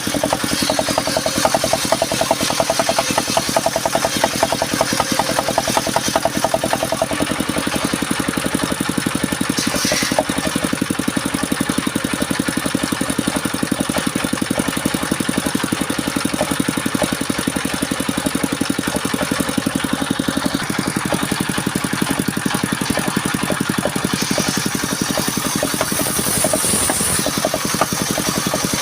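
Engine of a wood-cutting saw machine running steadily, with a rapid, even beat throughout.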